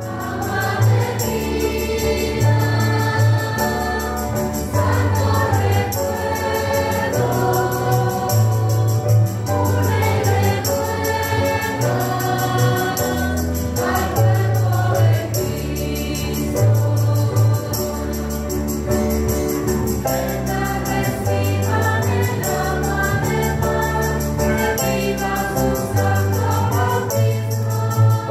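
Church choir singing a baptismal hymn with instrumental accompaniment and a steady bass line whose notes change about once a second.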